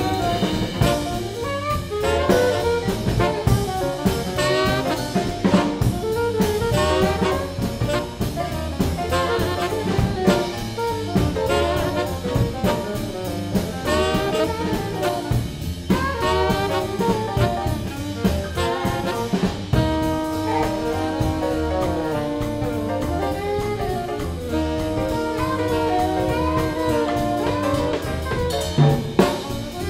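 Swing jazz band playing: an alto saxophone solos in quick running phrases over a swung drum kit, then holds longer notes from about twenty seconds in.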